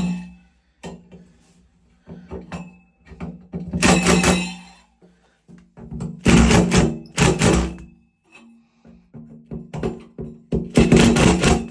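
Cordless power driver tightening a grab bar's mounting screws into a tiled wall, run in about four short bursts with a rattling buzz over the motor's hum.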